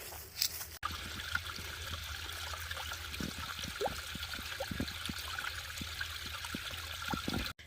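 Small stream trickling and gurgling over rocks: a steady wash of running water with short bubbling plops, starting abruptly about a second in.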